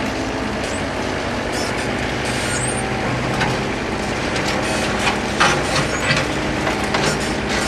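Diesel engine of a heavy work machine running steadily, with a series of sharp knocks and clanks in the second half.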